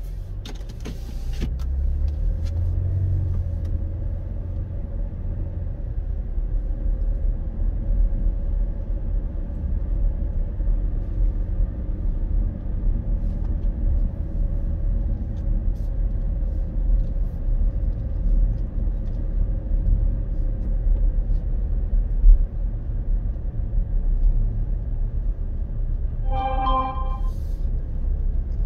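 Steady low rumble of a car driving slowly, heard from inside the cabin. There are a few clicks in the first second, and a brief pitched tone sounds near the end.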